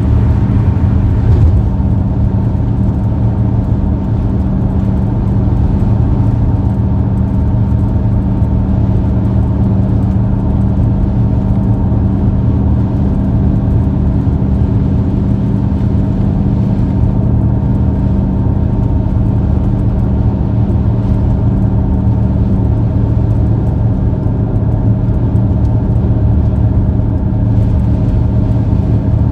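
Steady drone of a car driving at constant speed, heard from inside: engine hum and road noise holding one even pitch throughout.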